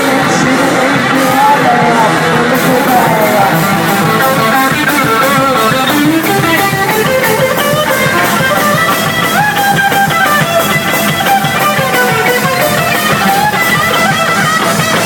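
Live rock band playing an instrumental passage, an electric guitar solo over bass and drums with a steady beat.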